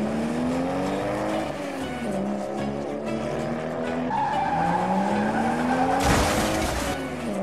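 Dubbed car sound effects: an engine revving up in repeated rising sweeps about every two seconds. A tyre squeal comes in about four seconds in, and a short rush of noise follows near the end as a car drives past.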